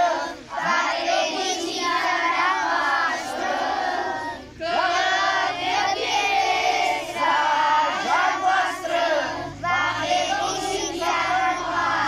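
A large group of children singing together in unison, phrase after phrase with short breaths between. A low hum joins in near the end.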